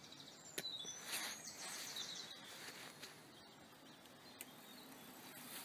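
Faint birdsong: small birds chirping and twittering over a steady outdoor hiss, with a couple of sharp clicks.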